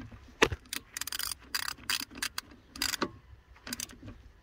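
Ratchet wrench clicking in short, irregular bursts as it is worked back and forth on a brake caliper's bleed nipple while the brakes are being bled.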